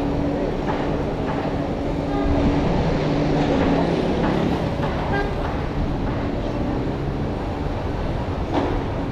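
City street traffic: vehicle engines running and passing, with a steady low engine drone.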